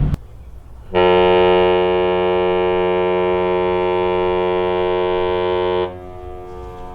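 A ferry's horn sounding one long, steady blast of about five seconds, starting about a second in and cutting off sharply.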